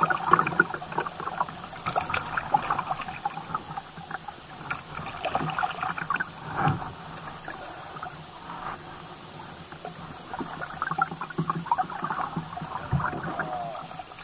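Kayak paddling on a slow stream: the paddle blades dip and drip, and water splashes and trickles against the hull, with scattered small knocks. It quiets for a few seconds in the middle, then the paddling picks up again.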